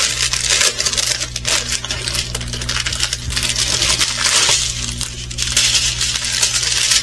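Small plastic bags of resin diamond painting drills being handled, the drills rattling and clicking against each other.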